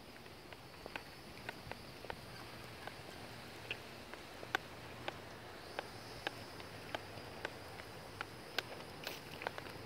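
Faint, irregular clicks and taps of a walk on asphalt: a small dog's claws and a walker's steps on the pavement, about one or two a second, over a faint steady high-pitched hum.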